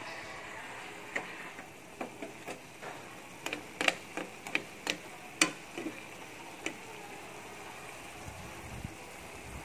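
Paksiw broth with a layer of cooking oil simmering in a pan of galunggong fish: a steady low hiss of bubbling with irregular sharp pops and crackles, thickest in the middle few seconds.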